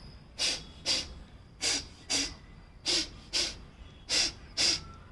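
Short, sharp, forceful breaths out through the nose in quick pairs, four pairs about a second and a quarter apart: yogic induced sneezing (prachchhardan kriya), blowing leftover jala neti water out of the nasal passages and sinuses.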